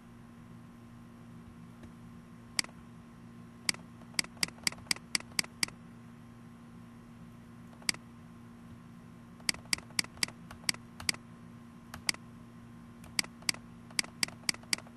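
Computer mouse button clicking, single clicks and quick runs of about five clicks a second, over a faint steady electrical hum.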